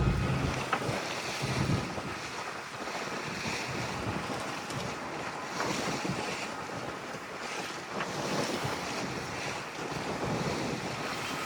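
Wind on the microphone and water rushing past the hull of a sailboat under sail: a steady hiss with a few faint clicks.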